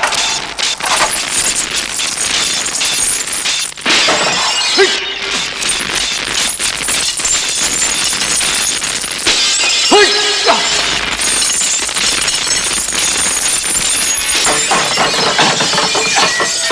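Film sound effects of glass shattering and breaking in a long, unbroken run of crashes, dense with many sharp impacts.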